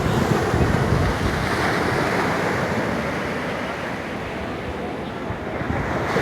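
Sea waves breaking and washing up a sandy beach: a steady rush of surf that eases off slowly and swells again near the end.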